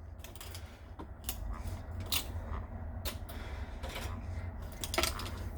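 Irregular light clicks and knocks over a steady low rumble.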